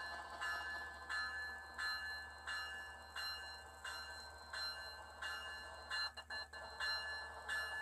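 Model railroad bell sound ringing steadily, about one and a half strikes a second, with a faint low hum underneath.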